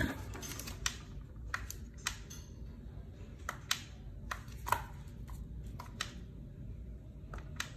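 Irregular light clicks and taps, about a dozen, from handling a small plastic electronic scale while it is set down and readied for weighing.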